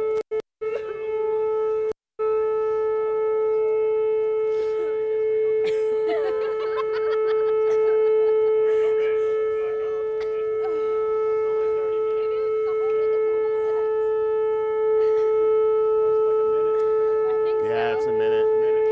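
Outdoor warning siren holding one steady, unwavering tone with overtones, which the guests take for the city's routine siren test. The audio drops out briefly twice in the first two seconds.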